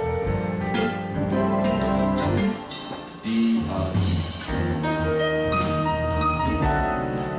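Live band playing an instrumental piece: held keyboard chords over a bass line, with scattered drum hits.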